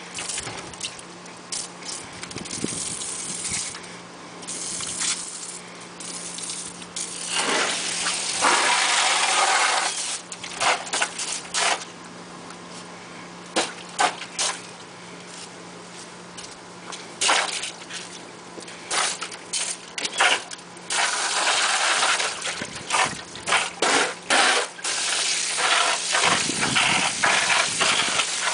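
Garden hose stream pouring into a shallow plastic kiddie pool, with a small dog splashing in the water: a running, gushing flow broken by many short sharp splashes, louder in a few longer stretches. A faint steady low hum runs underneath.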